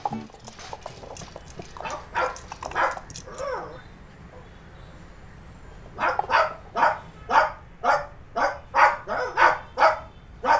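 A dog barking: a string of barks over the first few seconds, a short lull, then from about six seconds in a fast, steady run of two to three barks a second.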